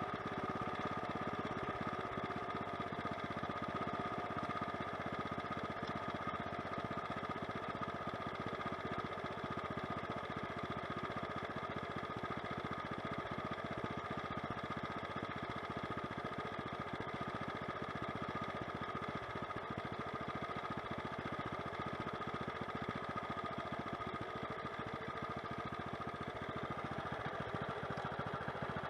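An engine running at a steady speed throughout, with no change in pace.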